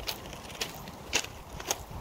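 Footsteps crunching on loose railway ballast at a steady walking pace, about two steps a second, over a low wind rumble on the microphone.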